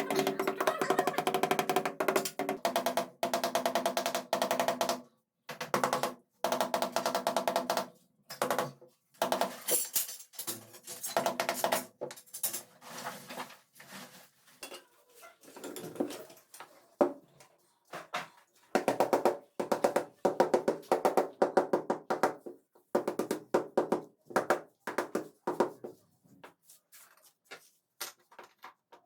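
Background music with rhythmic percussion.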